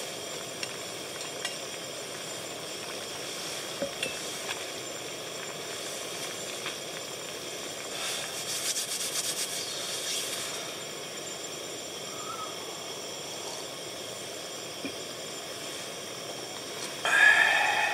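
A SOTO ST-301 gas stove hisses steadily under a simmering pot of hot-pot broth, and the broth bubbles. About a second before the end, a metal lid is set on the pot with a ringing clank.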